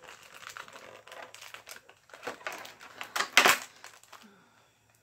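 Clear plastic packaging crinkling and crackling as it is handled, a string of sharp clicks with one loud crackle about three and a half seconds in.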